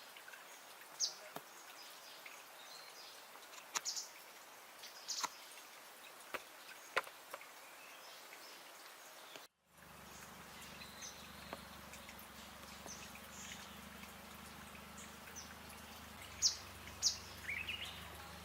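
Chestnut-headed tesia calling: single short, sharp, high notes a second or two apart, with a quick run of notes near the end. The sound drops out for a moment about halfway, and a low steady hum runs under it afterwards.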